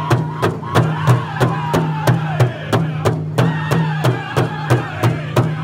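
Powwow big drum struck in unison by a seated drum group, a steady beat about three times a second, with the singers' high-pitched voices carrying the song over it. The vocal line falls in pitch in the first two seconds, breaks off briefly about three seconds in, then comes back in higher.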